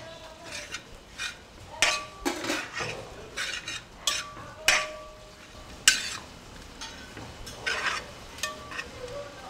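A metal spoon stirring squid pieces through thick masala in a large metal pot, with irregular scrapes and clinks against the pot and one sharp clink about six seconds in. The squid is being mixed into masala already fried in oil.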